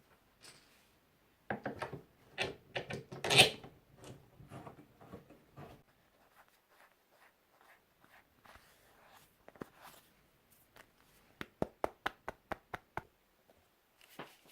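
A piece of 2x4 timber and small tools being handled on a workbench: a cluster of knocks and scrapes, then a run of sharp, separate clicks and taps.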